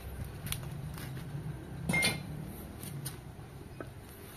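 Light metallic clinks and knocks of engine parts being handled, the loudest with a short ring about two seconds in, over a steady low hum.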